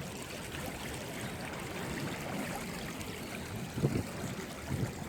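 Shallow river water running steadily, a continuous rushing and trickling, with a couple of faint brief sounds about four seconds in.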